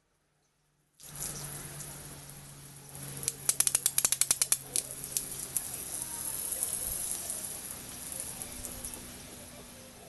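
Water splashing from an open garden hose end onto concrete, starting about a second in, then forced into a hissing spray by a thumb pressed over the opening. A quick run of sharp clicks comes about three to five seconds in.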